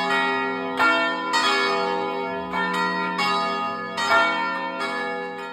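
Church tower bells ringing, struck several times in uneven succession, each strike ringing on over the hum of the bells before; the ringing dies away near the end.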